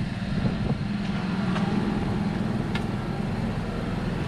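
A motorhome's motor running with a steady low drone, with a few faint ticks over it.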